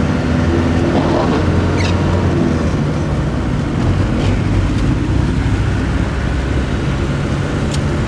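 Engine and road noise heard from inside a moving vehicle: a steady low drone that holds through the whole stretch.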